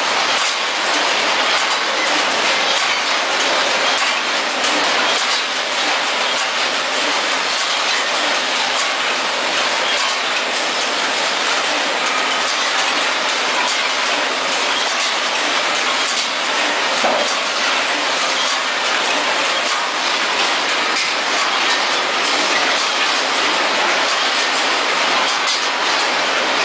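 Powder packaging machine running: a steady mechanical clatter of many fine, dense clicks.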